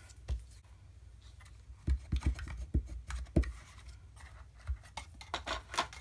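Paper being handled on a tabletop: light taps and rustles as a small folded paper box is turned over and pressed down, with a cluster of sharp taps around the middle and a few more near the end.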